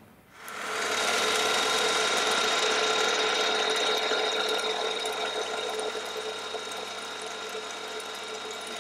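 Milling machine spindle starting up about half a second in and running with a steady whine while a 6 mm drill bores a hole into a wooden block; the sound eases slightly in the later seconds.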